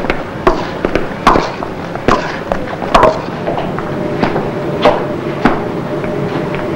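A series of sharp knocks at an uneven pace, roughly one every half second to a second, with a faint steady hum coming in about four seconds in.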